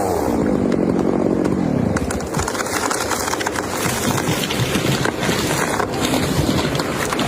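A chainsaw's engine falls away from a rev over the first couple of seconds. It then gives way to a steady rushing noise with many scattered cracks and snaps.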